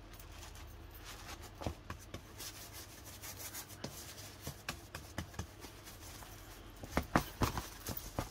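Paper napkin being rubbed and pressed onto cardboard with wet gel medium: a soft, continuous scratchy rubbing with small clicks, which get sharper and more frequent near the end.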